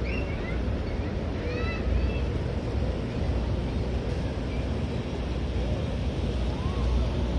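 Steady low rumble of wind buffeting the microphone over distant engine noise from the river and bridge traffic, with a few short high chirps in the first two seconds.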